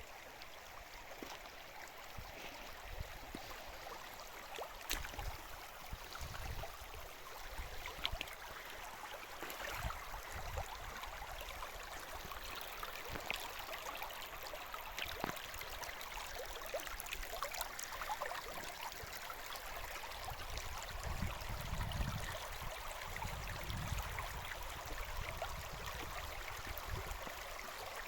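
Steady rushing of running water, with scattered small clicks and intermittent low rumbles.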